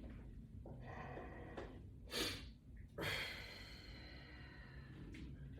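A man's forceful breathing while exerting during a resistance-band bench press, with two sharp, louder exhales about two and three seconds in.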